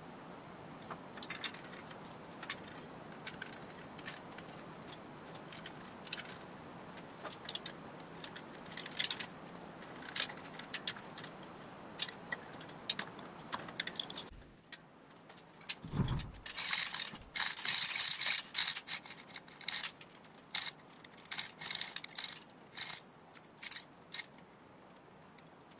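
Ratchet wrench clicking and metal clinks as a clutch pressure plate is bolted down onto a flywheel and a transmission is fitted to its bell housing. Steady background hum under the first half, dropping away a little past halfway, then a dense run of clicks.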